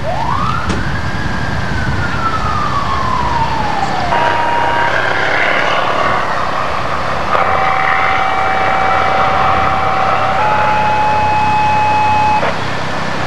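A siren winds up quickly and then slowly falls away over about four seconds. It is followed by a run of steady electronic alert tones: a short one, then a long tone held for about three seconds that steps up in pitch and holds for two more.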